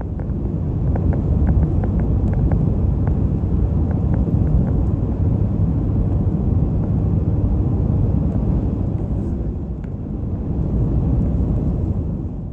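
Steady low road and engine rumble heard inside a moving car's cabin at highway speed, with a few faint clicks between about one and five seconds in.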